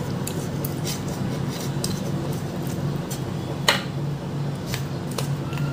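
Kitchen dishes and utensils clinking and tapping as they are handled, with one sharper clink about three and a half seconds in.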